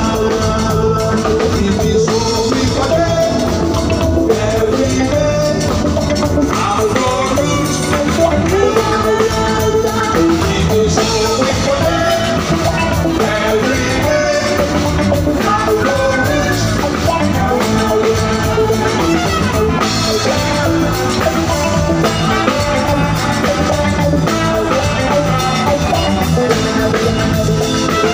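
Live reggae band playing: drum kit, a horn section and electric guitar under a lead singer's voice.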